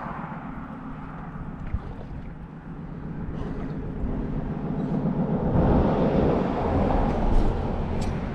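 An engine running steadily, swelling louder about five seconds in, over wind noise on the microphone.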